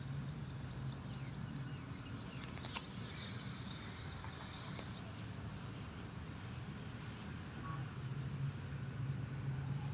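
Outdoor rural ambience: short high chirps repeating in pairs over a low steady hum, with one brief click about three seconds in.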